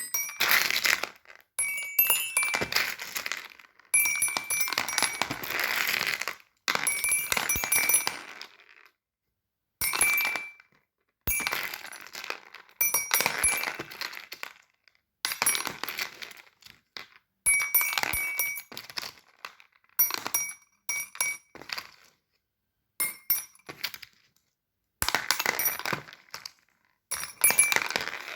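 Fidget toys being handled, in bursts of clicking, rattling and clinking with a light ringing. Each burst lasts one to three seconds, and the bursts are broken by short, sudden silences.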